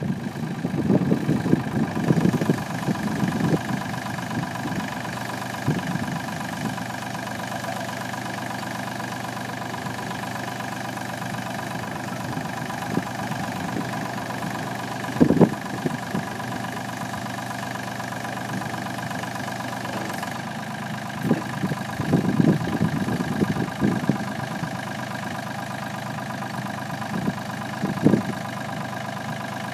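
Perkins four-cylinder diesel engine of a 1997 Sellick TM755 rough-terrain forklift idling steadily, with a few short louder spells near the start, midway and later on.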